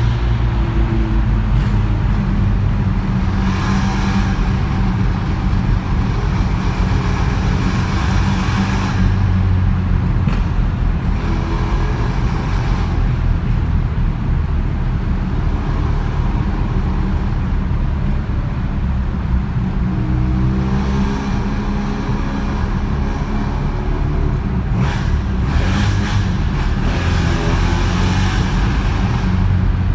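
Ported Mazda 13B twin-rotor engine breathing through a Weber 48 carburettor, headers and a one-off muffler, pulling and revving while driving, with sharp afterfire pops near the end.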